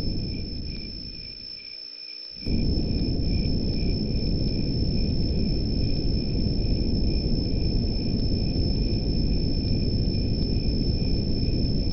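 Crickets chirring in a steady high trill over a low, even noise bed. The low noise fades down over the first two seconds and cuts back in sharply about two and a half seconds in.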